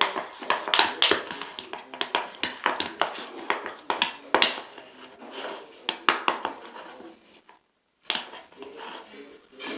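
Slime being mixed in a small dish with a makeshift stirrer: a rapid, irregular run of clicks and knocks of the tool against the dish. The clicking breaks off for a moment about three-quarters of the way through, then resumes.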